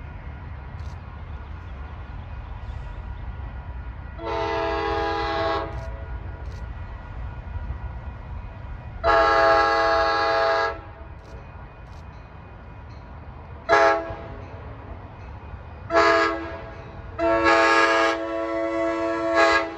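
Amtrak passenger train approaching and sounding its multi-note air horn: two long blasts, two short ones, then a long held blast, the pattern of a grade-crossing warning. A low rumble runs underneath.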